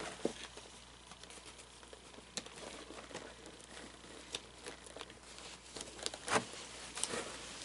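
Faint rustling of fabric and scattered small clicks and knocks as hands handle the animatronic figure's clothing and body, with one louder knock about six seconds in.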